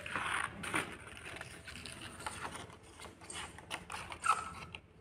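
Scissors cutting through craft paper: an irregular run of snips and clicks, with the paper rustling as the sheet is turned.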